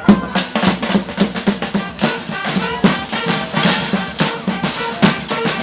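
Street band drums playing a fast, steady beat, snare and bass drum hits close together, with faint held tones over them.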